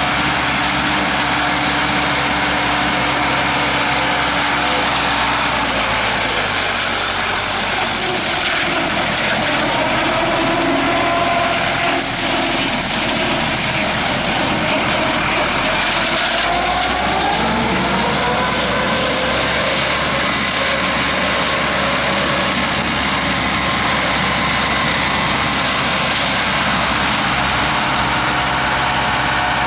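Zetor tractor's diesel engine running steadily while it drives a side-mounted grass mower. The engine note dips about six seconds in and climbs back up about seventeen seconds in.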